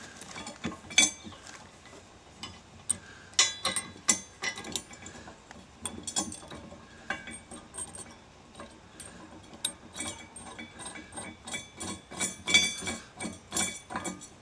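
Socket ratchet clicking in short, irregular runs as a nut is tightened down onto a bolt inside a square steel hitch tube, with occasional metal clinks.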